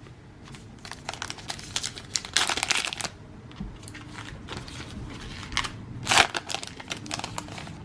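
Baseball trading cards being handled and shuffled through by hand: irregular papery rustles and small clicks, strongest about two and a half seconds in and again about six seconds in.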